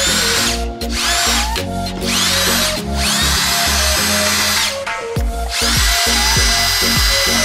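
Bosch 18V cordless drill/driver motor run in repeated bursts of trigger, its whine rising in pitch as it spins up each time and holding on the longer runs. It is running on a battery pack freshly rebuilt with new 18650 cells.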